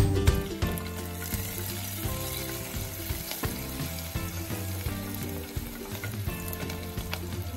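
Sliced onions sizzling as they fry in a pressure cooker, with a wooden spatula stirring them through the middle and latter part.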